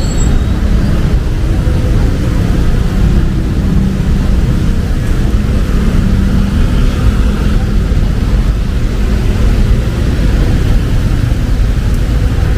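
Steady road traffic on a busy city street: a continuous low rumble of passing vehicle engines and tyres.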